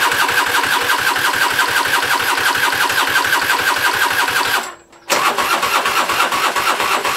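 Scooter's electric starter cranking its 180cc engine, which does not catch: a fast, even chugging of about nine beats a second, in two long tries with a short break about five seconds in. The long cranking is running the battery nearly flat.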